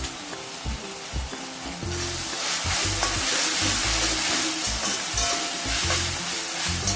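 Vegetables stir-frying in a metal kadhai, sizzling as a steel spatula stirs and tosses them. The sizzling grows louder about two seconds in as the stirring quickens. Soft background music plays underneath.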